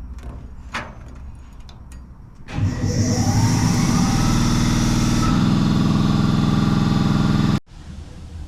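A motor spinning up, rising in pitch for about a second and a half, then running steadily and loud before cutting off abruptly near the end.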